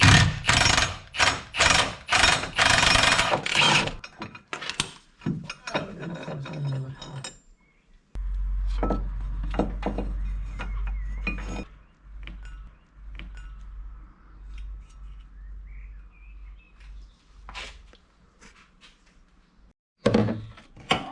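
Metal hand tools and engine parts clinking, knocking and rattling while being handled, in a rapid cluster of impacts at the start, sparser clicks afterwards and another short burst near the end, with a low rumble for a few seconds in the middle.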